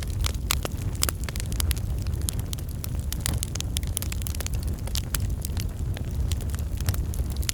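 Wood fire in a fireplace crackling, with dense irregular pops and snaps over a steady low rumble.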